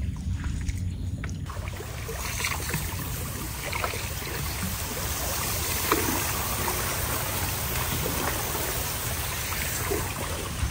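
Steady rain falling, an even hiss that comes in suddenly about a second and a half in, with scattered light ticks and a low rumble underneath.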